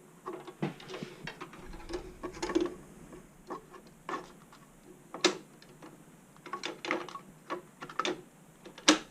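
Irregular clicks, taps and rustling of hands handling computer parts and cables, with two sharper clicks about five seconds in and just before the end.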